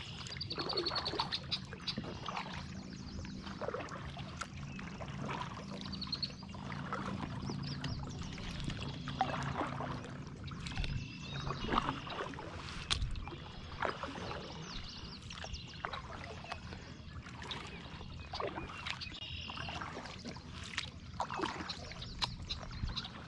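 Kayak paddle dipping and pulling through calm water, the strokes splashing and dripping every second or two, with birds chirping faintly now and then.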